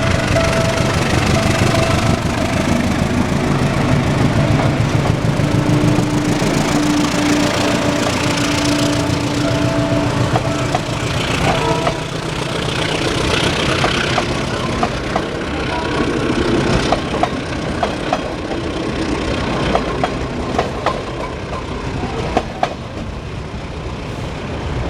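PNR General Electric diesel locomotive passing with its train, its engine rumbling for the first ten seconds or so. After that come many sharp clicks and knocks, the wheels of the passing cars over the rails, with street traffic behind.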